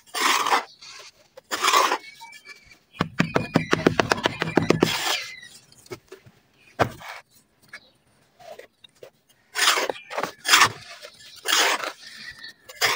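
Dry red dirt chunks crumbling and crunching: short gritty crunches, with a run of rapid crackling about three to five seconds in.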